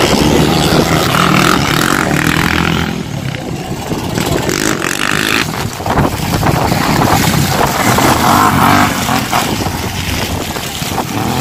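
Racing quad (ATV) engines revving hard as the quads pass close by one after another, the pitch rising and falling with the throttle.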